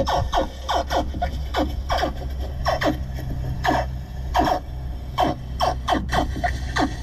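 Jon boat under way across choppy water: a steady low motor hum with repeated short slaps and scrapes from the hull, two or three a second, each falling in pitch.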